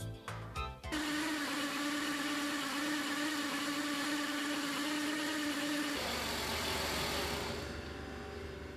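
Portable valve grinding machine running, a steady mechanical whine with grinding noise. About six seconds in it changes to a lower hum and then fades away.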